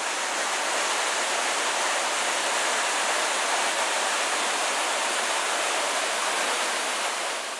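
Steady rush of flowing water, easing off slightly near the end.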